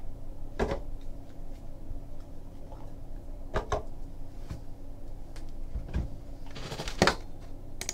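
Hands opening a cardboard trading-card box: the lid is pulled off and the stack of cards slid out and set down, making three soft knocks and a few light scrapes over a faint steady hum.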